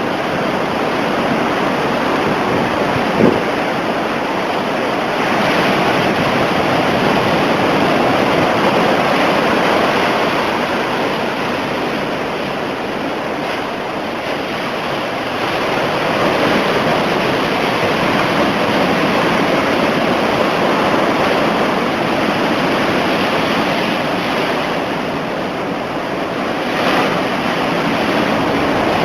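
Heavy hurricane surf crashing and rushing on the shore in a continuous roar that swells and eases every few seconds, with wind on the microphone. A single short thump about three seconds in.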